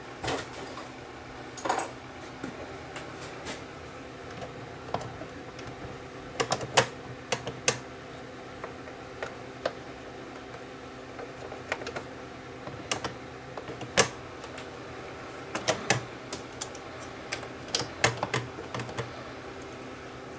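Irregular small clicks and taps of metal parts and hand tools being handled on a Sony TC-200 reel-to-reel deck's tape transport during disassembly, some in quick clusters. A steady fan hum runs underneath.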